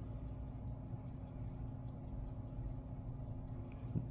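Illinois pocket watch movement ticking quickly and evenly, about five ticks a second, over a low steady hum.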